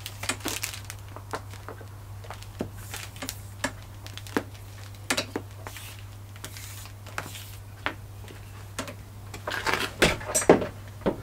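Irregular light clicks and knocks of an orange extension cable and its plastic plug being handled, untangled and dragged across a concrete floor, over a steady low hum. The knocks come thicker and louder near the end.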